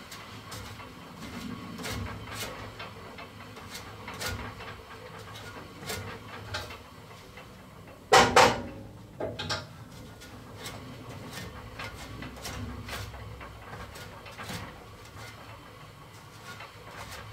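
Upper wheel of a Rikon 10-326 14-inch bandsaw being turned by hand, with light clicking and a low hum from the wheel and blade as the blade's tracking is checked. A loud sharp clack about eight seconds in is followed by two lighter knocks.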